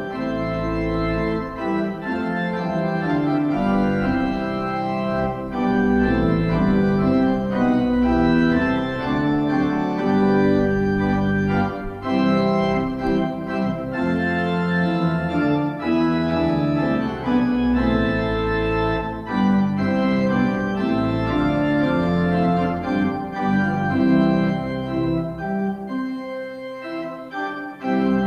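Organ playing the postlude in slow, sustained chords that change every second or so. The music thins and drops briefly near the end before the chords come back.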